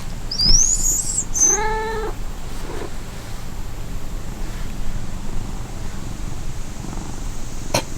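A domestic cat meowing once, about a second and a half in, with a short high rising squeak just before it.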